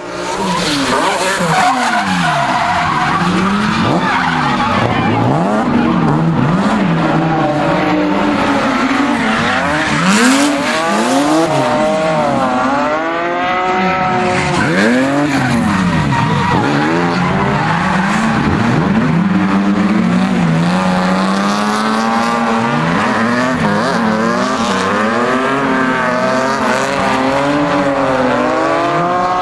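Drift car's engine revving up and down again and again as the car slides through the corners, with tyres squealing.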